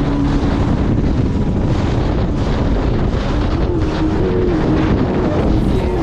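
Sea-Doo RXT-X 300 personal watercraft running on the water, its engine steady under heavy wind noise on the microphone.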